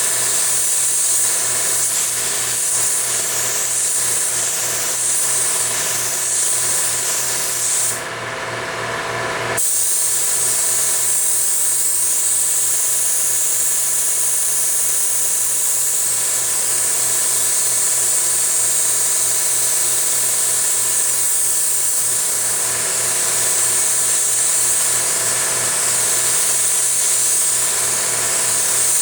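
Compressed air hissing steadily from a paint spray gun applying or flashing off base coat, cut off for about a second and a half about eight seconds in, over a steady machine hum with a fast low pulse.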